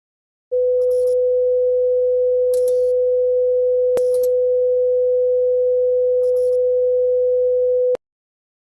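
Emergency alert system alarm tone: one steady mid-pitched tone held for about seven seconds, starting half a second in and cutting off sharply near the end, with a few brief crackles of static over it.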